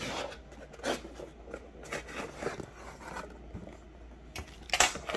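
Cardboard shipping box being handled and worked open: irregular scraping, rubbing and tearing of cardboard and packing tape, with a louder scrape near the end.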